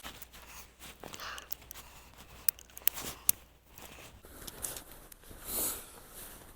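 Light rustling and several small sharp clicks as ammunition is handled and loaded into a Cimarron single-action .45 Long Colt revolver.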